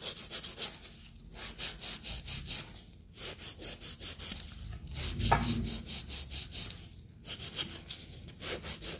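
Hand nail file rasping in quick back-and-forth strokes across an Acrygel (gel–acrylic hybrid) nail, shaping the sidewalls and free edge. The strokes come several a second in runs of one to four seconds, broken by short pauses.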